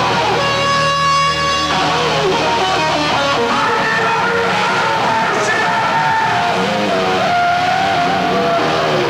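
Heavy metal band playing live. Distorted electric guitar holds a chord for about a second, then bending, wavering notes run over the full band.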